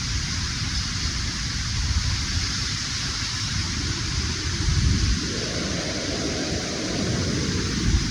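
Waterfall on Simms Brook rushing, a steady hiss of falling water, with a low, uneven rumble that swells from about five seconds in to near the end.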